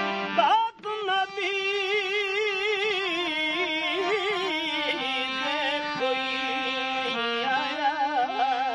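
Background music: a held chord breaks off about half a second in, and a solo melody with wide, wavering vibrato follows over steady lower notes.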